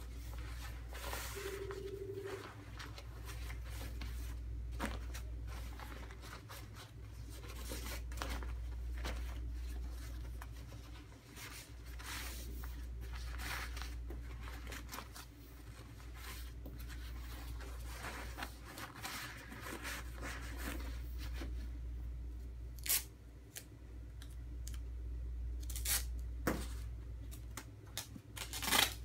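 Rustling and crinkling of a blue surgical gown being folded and pressed flat on a stainless steel table. Near the end come a few sharp rips as tape is pulled off a roll to bind the folded gown.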